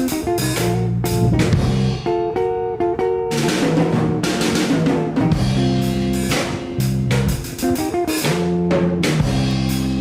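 Background music: a band track with guitar, bass and a drum kit keeping a steady beat.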